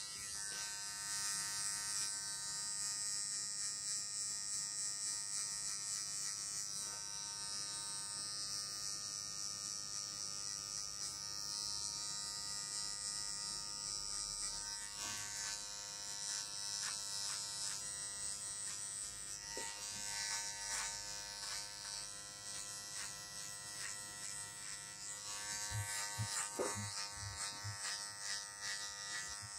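Electric hair clipper switched on with a click and buzzing steadily as it trims around the ear and neckline. A run of soft low thumps comes near the end.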